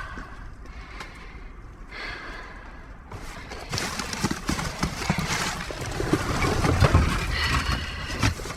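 Irregular knocks and clatters of scrap being shifted and handled inside a dumpster, with a low rumble. It is fairly quiet for the first few seconds, then busier and louder from about three seconds in.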